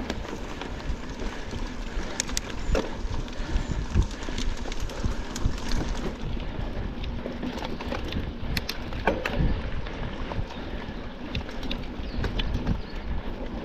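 Mountain bike being ridden: a steady rush of tyre and wind noise on the microphone, broken by frequent sharp clicks and knocks of the bike rattling.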